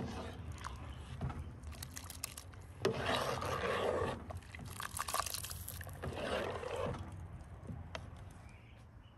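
Metal ladle stirring hot milk in an aluminium pot: the milk swishes in swells as the ladle sweeps through it, and the ladle scrapes and clinks against the pot now and then.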